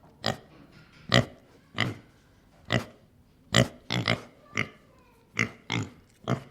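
Domestic pig grunting: a series of short, separate grunts, roughly one or two a second, a few of them coming in quick pairs.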